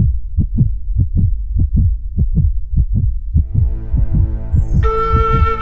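Background music opening with a steady, deep heartbeat-like drum pulse at about three beats a second. A soft sustained chord swells in, and a held flute-like note enters near the end.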